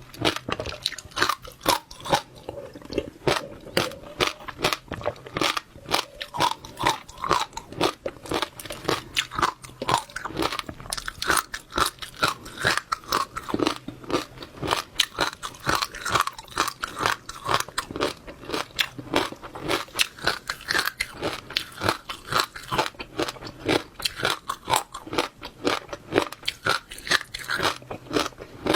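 Close-miked chewing of wet passionfruit seeds: a steady run of crisp crunching pops, about two or three a second.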